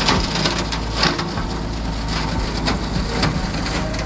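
Kioti 2610 compact tractor's diesel engine running steadily while a Bobcat 5 ft brush hog (rotary cutter) is backed into dry brush and briars, with irregular crackling and snapping as the stems are cut and crushed, the sharpest snaps about a second in and near the end.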